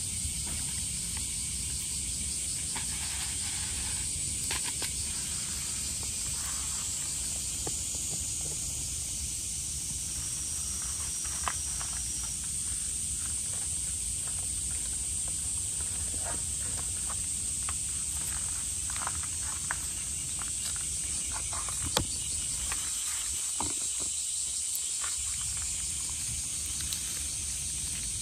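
Steady high-pitched chirring of insects, with scattered short clicks and ticks close by, one sharper click about two-thirds of the way through.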